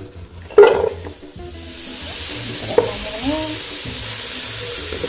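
Cubed butternut squash tipped into a stainless steel pot, landing with one loud clatter about half a second in, followed from the second second by a steady sizzling hiss.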